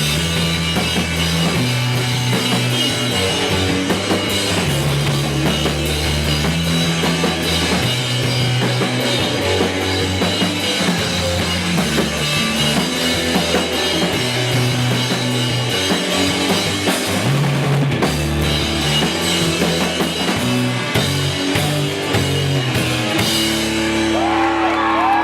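Live rock band playing an instrumental passage with drum kit, bass and electric guitar. Near the end the song stops and the audience starts cheering and whooping.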